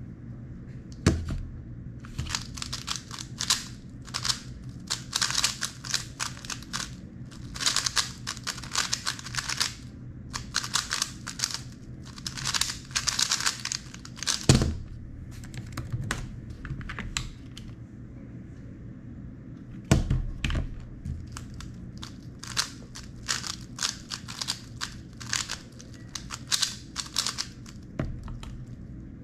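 3x3 speedcube being turned very fast, its plastic layers clicking and clacking in rapid runs that pause briefly between bursts. A few heavier thumps break in, about a second in, midway and about two-thirds of the way through.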